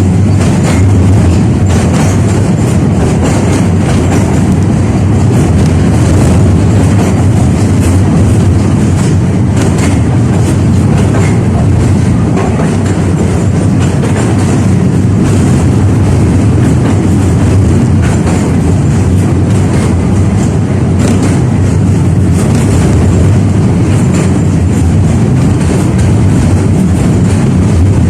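KTM-5A (71-605A) tram car running along the track between stops: a steady, loud rumble of wheels on rails and running gear, with scattered clicks over the rail joints.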